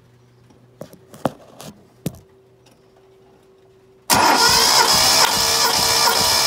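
A few light clicks and knocks. Then, about four seconds in, a loud, even cranking sets in suddenly: the starter motor is turning over the Datsun Cedric's 2.4-litre straight-six with the spark plugs out, for a compression test of one cylinder.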